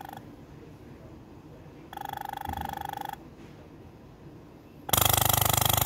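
Electro-pneumatic valve positioner working through its automatic initialization on a double-acting pneumatic actuator. About two seconds in its air valves give a buzzing pulse of about a second, and about five seconds in a loud burst of compressed air hisses through it with a low buzz, the loudest sound here, as it drives the actuator.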